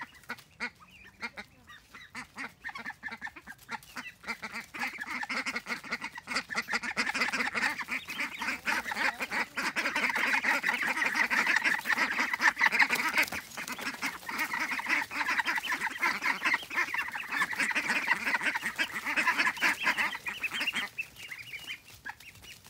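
A flock of a few dozen young ducks calling all at once, a dense chatter of quacks. It starts faint and swells from a few seconds in.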